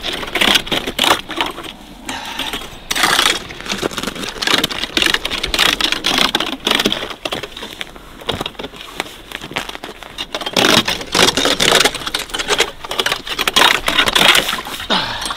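Metal ice chisel chopping and scraping at sea ice to break open a hole, in repeated irregular crunching strikes.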